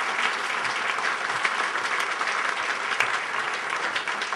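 Audience applauding steadily: many hands clapping.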